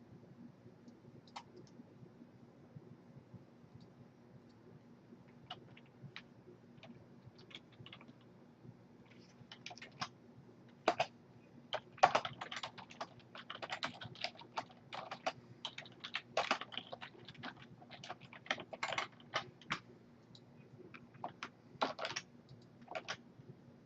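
Typing on a computer keyboard: a few scattered keystrokes at first, then quicker runs of typing from about ten seconds in, over a faint steady hum.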